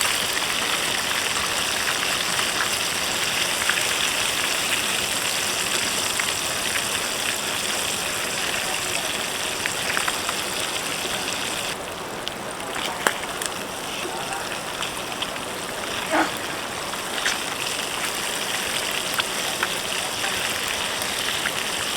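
Steady rushing hiss of river water flowing, with a few sharp little clicks in the second half.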